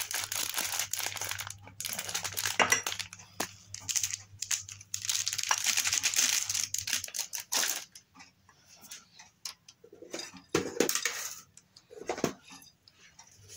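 Thin plastic bag crinkling as cocoa powder is shaken out of it, then a metal spoon scraping and clicking against a glass bowl as flour and cocoa powder are stirred together.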